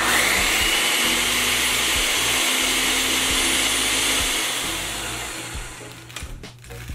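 Electric blender motor blending a thick vegan cream cheese sauce. It starts abruptly with a whine rising as it spins up, runs steady for about four seconds, then winds down and fades out.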